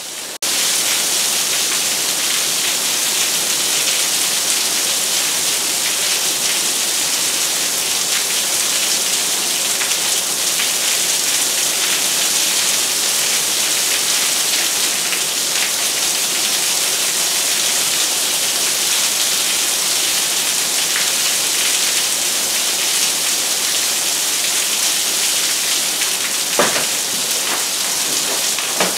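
Heavy rain pouring down steadily, with rainwater spilling over clogged roof gutters in a dense, even hiss. A single brief knock sounds near the end.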